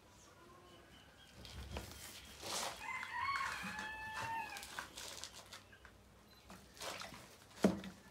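A rooster crows once, about a second and a half long, in the middle. Around it come rubbing and scraping noises of pigment being worked on paper, and a sharp tap near the end, the loudest sound.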